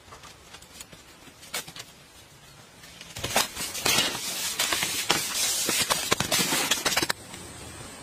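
Wet clay mud squelching and slapping as bare feet tread it, loud for about four seconds starting about three seconds in. A steady hiss follows near the end.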